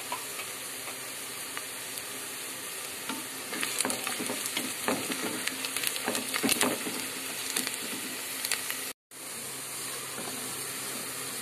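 Sliced onions sizzling as they fry in hot ghee in a pressure cooker, browning. A wooden spatula stirs and scrapes them against the pot, with clatter for several seconds in the middle. The sound cuts out for a split second about nine seconds in.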